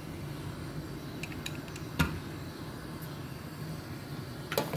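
Pot of chicken and chana dal boiling on a gas burner set high, a steady low rumble. A sharp knock about two seconds in, and a couple of clicks near the end.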